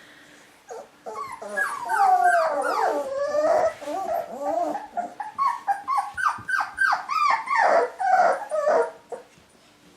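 Mini Bernedoodle puppies about four and a half weeks old whining and yipping: a quick string of short, high calls that slide up and down in pitch, often overlapping, starting about a second in and stopping near the end.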